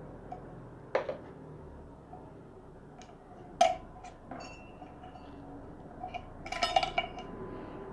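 Small metal clicks and clinks as the parts of an aluminium gravity-feed paint spray gun are handled while it is taken apart. There is a click about a second in, a sharper clink about three and a half seconds in, and a short cluster of ringing clinks near the end.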